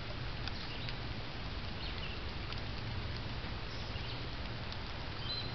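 Steady outdoor background hiss with a low rumble underneath, a few faint short high chirps from small birds, and a few light clicks.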